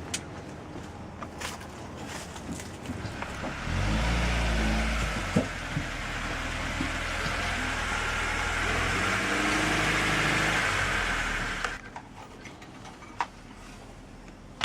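A car's engine and road noise: a low rumble with a rising engine note about four seconds in, lasting about eight seconds and then cutting off abruptly.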